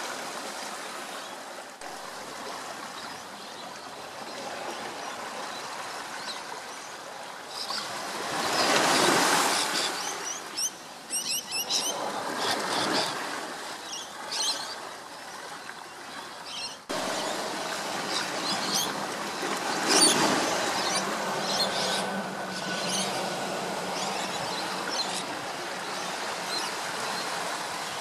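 Outdoor coastal ambience: a steady rushing wash of waves that swells louder about eight seconds in and again around twenty seconds, with scattered high, quick chirps of small birds. The level steps up abruptly about seventeen seconds in.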